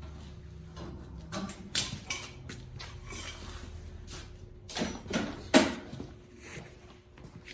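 A string of scattered metallic clinks and knocks from hand tools and steel parts being handled, with the loudest knock about five and a half seconds in.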